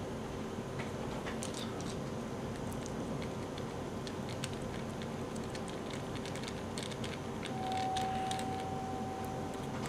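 Faint scattered clicks and ticks of a small Phillips screwdriver turning a tiny screw in the frame of a Walkera V120D02 micro R/C helicopter, over a steady hum. A steady high tone comes in for about two seconds near the end.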